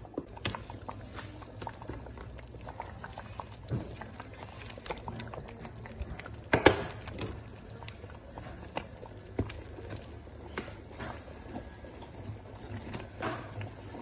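Thick soup bubbling in a pot, with scattered small pops and clicks and one sharp knock about halfway through.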